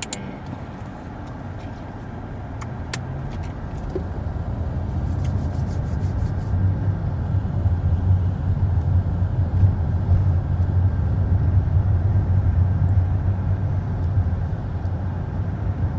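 A car driving, giving a steady low rumble of engine and road noise that grows louder over the first several seconds and then holds. There is a single sharp click about three seconds in.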